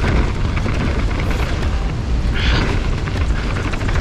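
Wind buffeting the rider's camera microphone over the rumble and rattle of a downhill mountain bike's tyres on a fast gravel trail, with a short louder hiss about two and a half seconds in.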